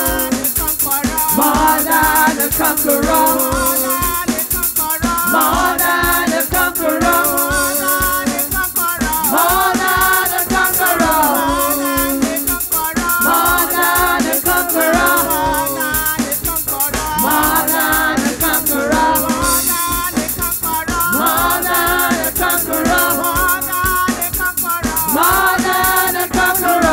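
Live gospel praise song: a group of women singers in harmony over a drum kit and shaker keeping a fast, steady beat.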